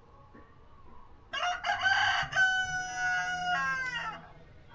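Brahma rooster crowing once, starting about a second in: a few rough opening notes, then a long held note that slides down in pitch at the end.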